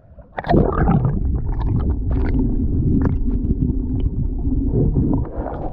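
Muffled underwater rumbling and bubbling picked up by a submerged camera, with scattered clicks and knocks, starting about half a second in.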